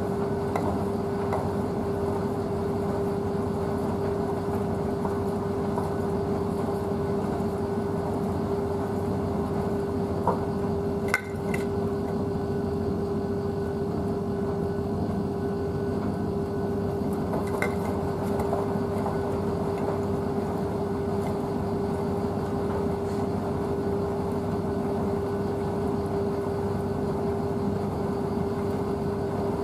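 Blomberg WNF9448 front-loading washing machine on its second rinse, the drum turning a wet dog blanket through water over a steady hum. A few sharp clicks stand out, the clearest about eleven seconds in.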